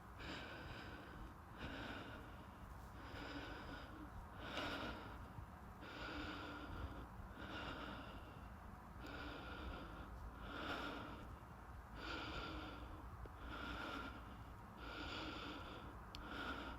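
A man breathing heavily close to the microphone, in even, rhythmic breaths about every second and a half.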